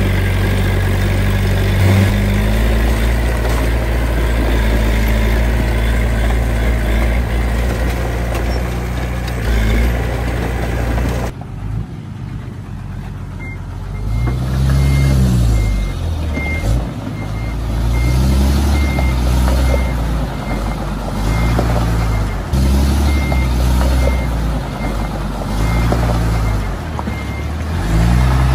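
Heavy earthmoving machinery engines working. About eleven seconds in the sound changes abruptly to an engine revving up and down again and again, with a reversing alarm beeping steadily over it.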